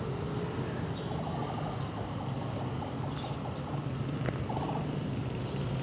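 Street ambience: a steady low hum of traffic, with a few faint short chirps.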